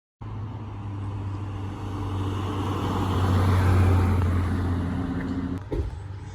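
Nissan 370Z's 3.7-litre V6 running, its sound growing louder to a peak about four seconds in and then easing off, with a short knock near the end.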